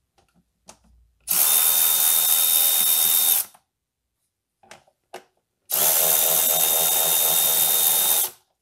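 Milwaukee Fuel cordless ratchet running twice, about two seconds each time, with a steady high whine, undoing the bolts that hold the plastic engine cover. A few light clicks come between the runs as the socket is set on the next bolt.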